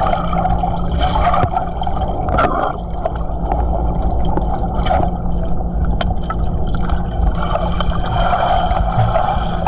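Underwater sound in a swimming pool: a steady low hum and water noise, with a few sharp clicks.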